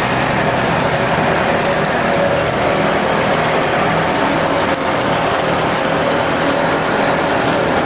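Tractor engine running steadily, driving a circular sawmill through its PTO and drive belts; a constant mechanical hum with the saw turning without cutting.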